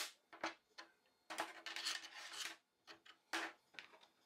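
Plastic 3D-printed parts being pried and scraped off a 3D printer's print bed: a few sharp snaps and clicks as pieces come free, a longer scraping rub starting about a second in, and another snap a little after three seconds in.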